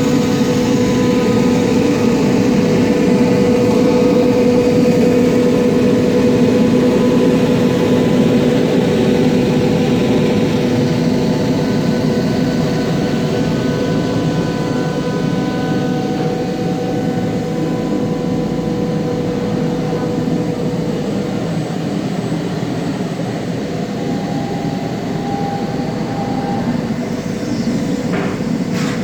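Five-axis CNC machine running: a steady loud mechanical drone with a hum and faint whining tones that change pitch now and then as it works. A brief sharp noise near the end.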